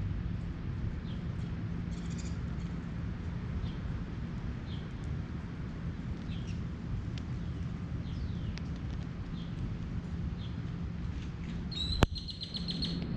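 Wild birds calling outdoors: scattered short, high chirps over a steady low background rumble. Near the end comes a sharp click, then a rapid trill of about ten high notes in about a second.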